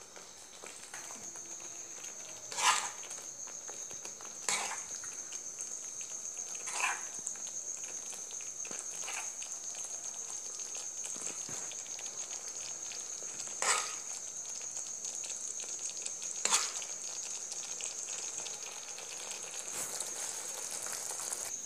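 Thick tomato pizza sauce sizzling and bubbling in a nonstick pan as a spatula scrapes it into a small bowl, with about half a dozen sharp knocks of the spatula against pan and bowl. A steady high-pitched whine runs underneath from about a second in.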